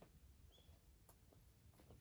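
Near silence, with a few faint scattered clicks and one short high chirp about half a second in.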